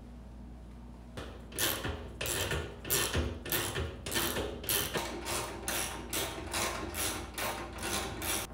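Hand ratchet clicking in quick back-and-forth strokes, about three a second, as the mounting bolts of a generator's fuel tank are tightened; it starts about a second in.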